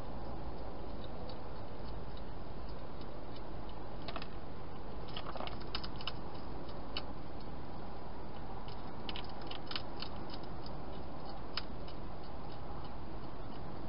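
European hedgehog chewing food inside a plastic feeding box: irregular sharp crunching clicks, bunched in the middle, over a steady hiss.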